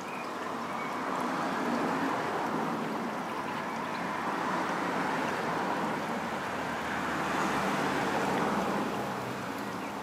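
A steady rushing noise with no distinct events, swelling and easing several times over a few seconds.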